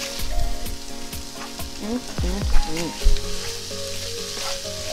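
Vegan meatless ground crumble sizzling in an oiled frying pan while a spatula stirs it, with light scrapes and taps against the pan.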